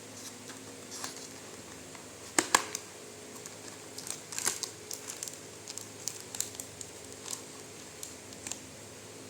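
Packaging crinkling and crackling as it is handled and opened, in scattered short bursts, with two sharp knocks about two and a half seconds in.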